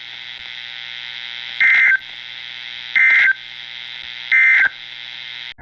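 NOAA Weather Radio SAME (EAS) end-of-message data bursts: three short, loud buzzy digital tones about 1.4 s apart over a steady radio hiss. They mark the end of the severe thunderstorm warning broadcast.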